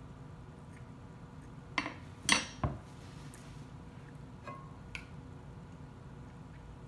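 Metal fork clinking against a baking dish as food is picked up: three sharp clinks close together about two seconds in, the middle one loudest and ringing, then two lighter taps a couple of seconds later.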